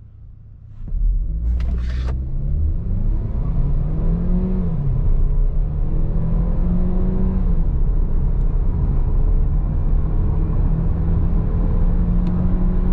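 GAC GS4 SUV accelerating at full throttle from a standstill, heard from inside the cabin. The engine note comes in about a second in and climbs, drops once at an automatic upshift about four and a half seconds in, then climbs again and holds high as the car passes 100 km/h.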